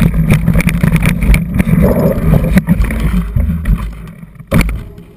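Rumble and rattle of a mountain bike, a Specialized Epic, riding over a rough, rocky forest trail, heard through a camera mounted on the bike, with many small knocks and jolts from the bumps. It fades near the end, with one sharp knock just before it dies away.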